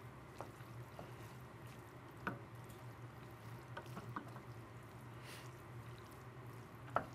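Wooden spoon stirring pasta and wilted spinach in a stainless steel saucepan: faint wet squishing with a few light clicks of the spoon against the pan, the sharpest near the end, over a steady low hum.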